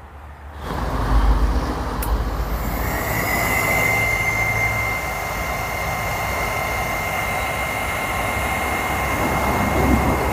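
Hot air gun switched on about a second in, then blowing steadily with a rushing of air and a thin, steady whine, heating the bottom of a tin can of hardened PVC pipe cement to liquefy it.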